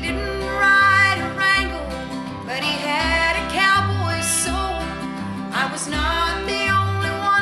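Country music with guitar over a steady bass line.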